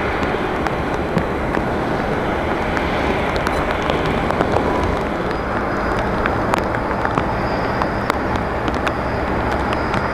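Steady rush of rain mixed with the distant noise of airliner jet engines, with scattered sharp ticks of raindrops throughout.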